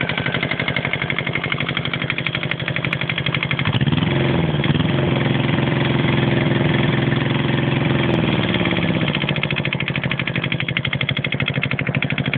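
Kubota ZB400 two-cylinder diesel engine running with a fast, even knocking beat. About four seconds in it speeds up and runs higher for about five seconds, then settles back to idle.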